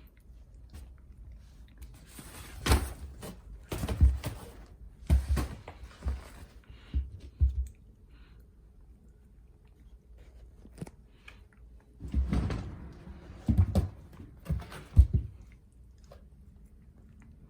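A cat playing: irregular thumps and scuffles in two spells of several seconds each, with quiet between.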